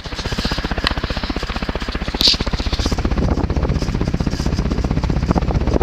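View-Fan 36-inch industrial ceiling fan with steel blades running on high: a rapid, even pulsing thrum that grows louder and fuller about three seconds in.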